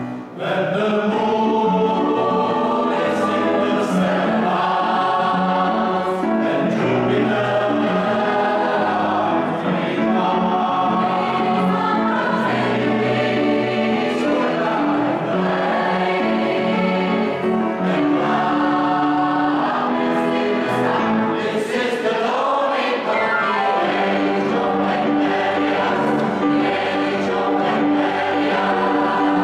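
Mixed choir of women's and men's voices singing together in held, full chords that move from one to the next, after a brief breath pause right at the start.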